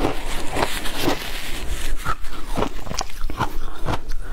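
Ice chunks dusted with matcha powder being crunched and chewed, picked up close by a clip-on microphone: a steady run of sharp crunches, several a second.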